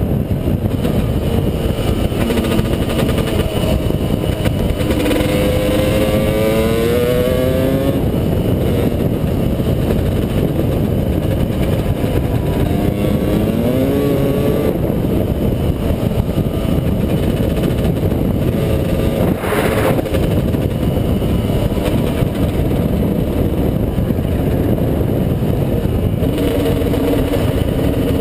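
Dirt bike engine running at speed over a rough, rumbling wash of wind noise. The engine pitch climbs as it accelerates about five seconds in, again around thirteen seconds, and once more near the end. A single short knock comes about twenty seconds in.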